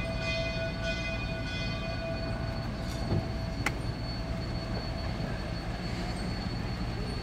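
Durango & Silverton K-28 steam locomotive No. 473 standing under steam: a steady low rumble and hiss with a thin, steady high whine, and one sharp click about three and a half seconds in.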